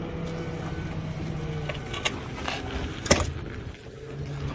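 A motor running with a steady hum, with a weaker knock about two seconds in and a sharp knock about three seconds in.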